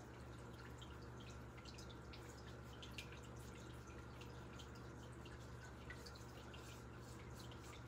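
Faint tap water trickling and splashing into a sink during handwashing, with many small irregular drips and patters. A low steady hum runs underneath.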